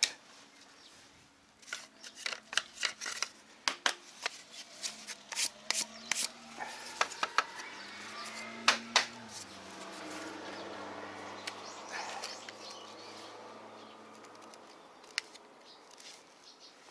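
Small cut plywood pieces knocking and clattering as they are handled and stacked on a wooden workbench: a string of short, sharp knocks, loudest about nine seconds in, then quieter handling.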